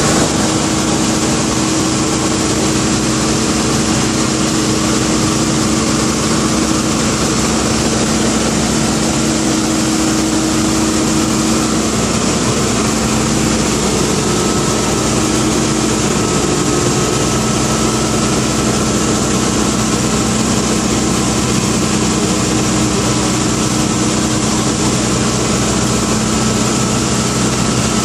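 Steady drone of a Dornier Do 27's piston engine and propeller, heard from inside the cabin in flight. The engine note changes a little about halfway through.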